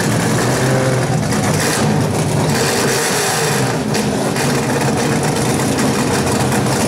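Drag-race car engines idling at the starting line, a steady low drone. A rushing hiss rises and falls around two to four seconds in.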